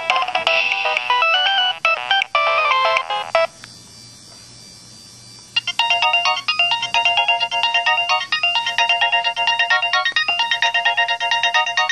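Mobile phone ringtones: an electronic melody plays for about three and a half seconds and stops. After a short pause a second ringtone starts, a fast, evenly repeating run of beeping notes.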